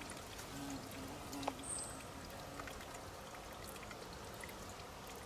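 Faint trickle of water seeping out of a wet rock face, with scattered small drips.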